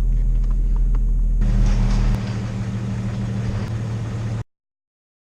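1993 Jeep Grand Cherokee engine running as it is driven, heard from inside the cabin, with a steady low rumble. The sound shifts about a second and a half in, as if the engine note changes, and cuts off abruptly near the end.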